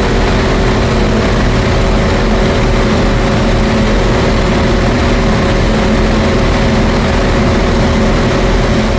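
A train standing or moving slowly close by, its engine running steadily: an even, loud low rumble with a steady hum.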